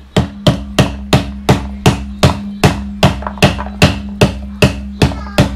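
Pomegranate de-seeder being tapped on its silicone lid in a steady run of knocks, about three a second, beating a halved pomegranate set cut-side down so that its arils drop into the plastic container below.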